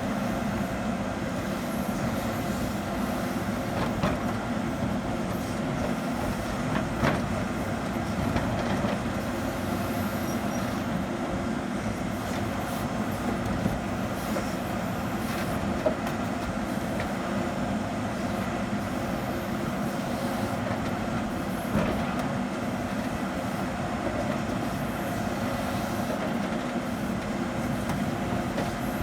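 Hidromek 102S backhoe loader's diesel engine running steadily under load while its hydraulics work the digging arm, with a few short knocks from the working equipment.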